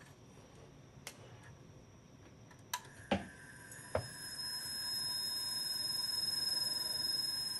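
Platters and spindle motor of an old IBM XT full-height 10 MB hard drive, hand-started with the cover off: a few clicks as the platters are turned, then a steady high whine that grows louder as the motor runs on its own power. The whine cuts off right at the end as the motor gives out and the drive stalls.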